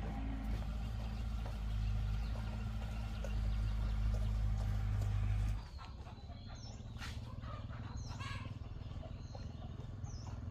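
A steady low hum cuts off suddenly about halfway through. Birds then chirp in short, repeated high calls.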